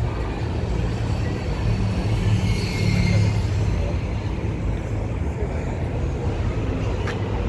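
City street traffic: cars passing on the road with a steady low hum that swells about two to three seconds in, under the murmur of people on the sidewalk.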